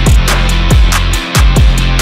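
Loud background music: a heavy, sustained low bass with booming drum hits that drop in pitch, and steady cymbal ticks.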